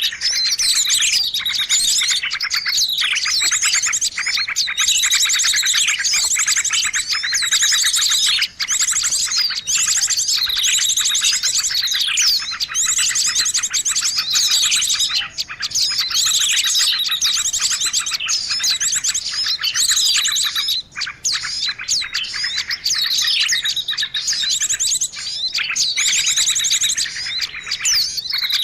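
Songbird singing without pause: dense, rapid twittering trills and chirps, with falling phrases every couple of seconds.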